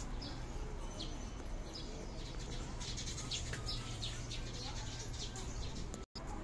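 Small birds chirping repeatedly in the trees, short high calls over a steady low hum. The sound cuts out for an instant near the end.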